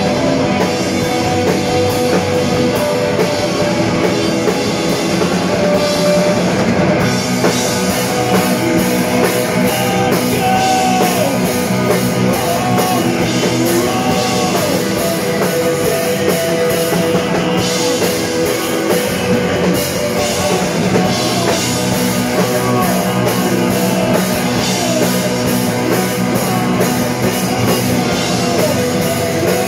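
Live rock band playing continuously: electric guitars over a drum kit, with sliding guitar notes in the lead line.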